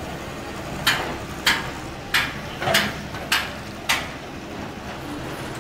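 Hammer blows on metal in a steady rhythm: six sharp strikes a little over half a second apart, starting about a second in, over steady street noise.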